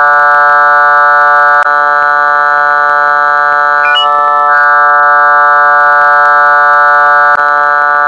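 Loud, steady synthesized drone: a held chord of many unchanging tones, with a faint click repeating about every six seconds as it loops.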